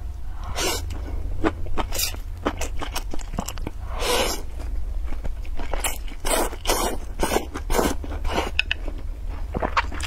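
Close-miked slurping of stir-fried noodles with chopsticks, with wet chewing: a series of short slurps, a longer one about four seconds in and a quick run of them later on. A steady low hum lies underneath.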